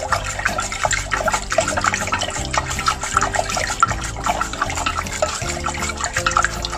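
Water swirling and splashing in a pot as a spoon stirs it, with many light clinks of the spoon, dissolving salt and sugar into a pickling brine.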